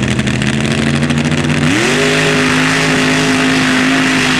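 Mud-bog racing buggy's engine running steadily, then revving up sharply about a third of the way in and holding high revs as the buggy launches down the mud pit.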